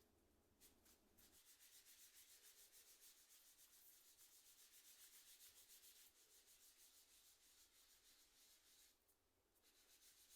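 Quick back-and-forth scrubbing strokes on keyboard parts being cleaned by hand, several a second, pausing briefly about nine seconds in, then resuming.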